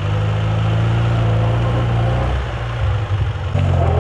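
An off-road vehicle's engine running steadily, its note wavering and dipping briefly a little past halfway before picking up again.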